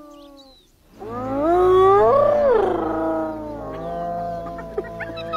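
Spotted hyenas calling: long whooping calls that rise and fall in pitch, loudest about two seconds in, then a few short sharp calls near the end.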